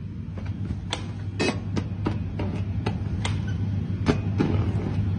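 Steady low machine hum with irregular sharp clicks and taps, a few a second at times.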